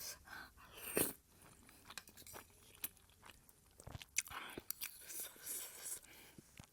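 Close-miked chewing and biting of food, with wet mouth noises and scattered sharp smacks and clicks; the loudest comes about a second in.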